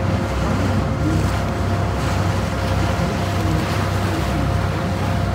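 Sightseeing boat under way: its engine runs with a steady low hum and a few constant tones, under a continuous rush of wind and water.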